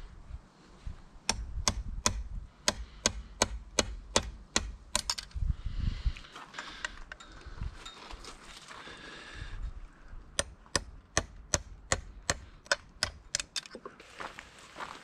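Ball-peen hammer striking a punch set in an NP435 transmission's top shift cover, driving out a pin: two runs of sharp taps, about three a second, separated by a pause of several seconds.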